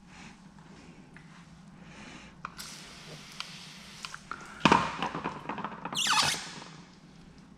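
Hand work on wet paint protection film on a car bumper: a stretch of hiss, a sharp knock about halfway through, then a short squeak falling steeply in pitch about six seconds in, as the film and squeegee are worked over the wet surface.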